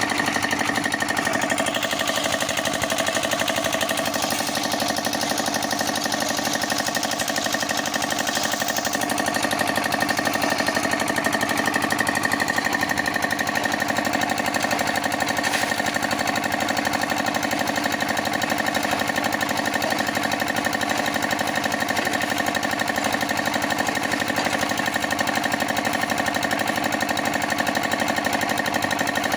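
Concrete mixer machine running steadily: an even, unchanging machine noise with a constant tone through it.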